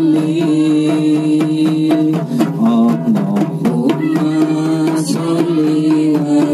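A group of women singing a shalawat devotional song together in held, stepping notes, accompanied by a steady rhythm of hand-struck rebana frame drums.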